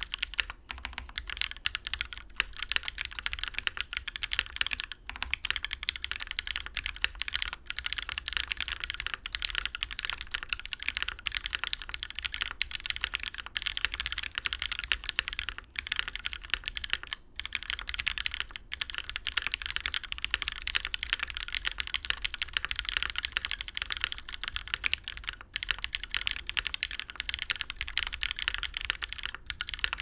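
Continuous fast typing on a Noxary 378 mechanical keyboard with Gateron Ink switches lubed with Krytox 205g0, a 5mm polycarbonate plate on a gasket mount, and GMK keycaps: a dense stream of deep but poppy keystrokes, broken by a few brief pauses.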